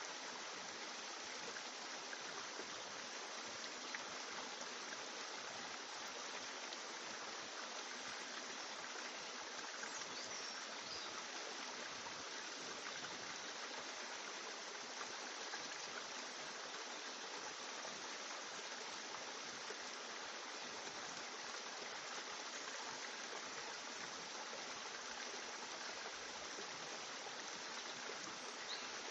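Steady, even rushing hiss that does not change.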